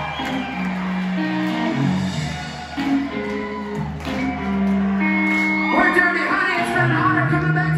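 Live hard-rock band playing electric guitar, bass guitar and drums, heard from the audience in a large hall.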